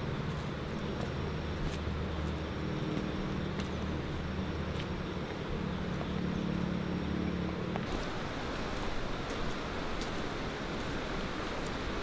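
An engine running steadily under a continuous hiss of rain, the engine stopping about eight seconds in while the rain hiss carries on.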